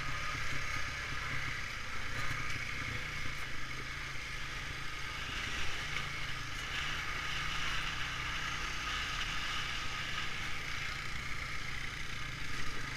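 Honda ATV's single-cylinder four-stroke engine running steadily while riding, with a low rumble and a steady hiss above it.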